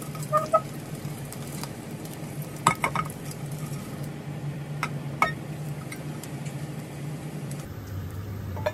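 Cubes of pork fat sizzling gently in a little oil in a saucepan as the lard renders out, stirred with wooden chopsticks that click against the pan a few times.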